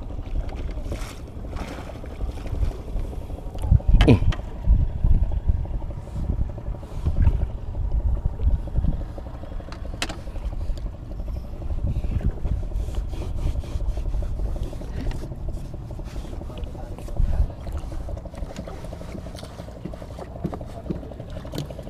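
Uneven low rumble of wind and water around a small wooden fishing boat, with a few knocks on the boat, the loudest about four seconds in.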